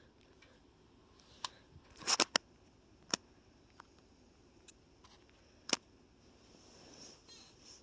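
A few sharp clicks with a short clattering rattle about two seconds in, over faint room hiss.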